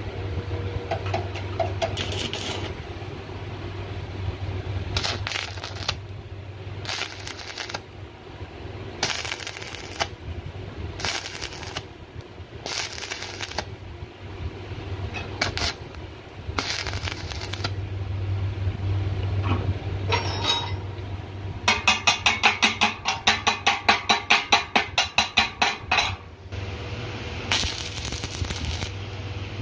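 Stick arc welding on a steel refrigerant cylinder: short bursts of crackling, each a second or two long, over a steady low hum. About 22 seconds in there is a quick run of sharp taps, about four a second, for some four seconds.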